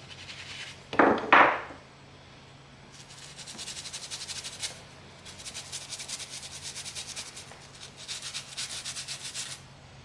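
Rapid back-and-forth rubbing on a leather ball glove, in three long runs of fast, even strokes. About a second in come two loud short scuffs, the loudest sounds here.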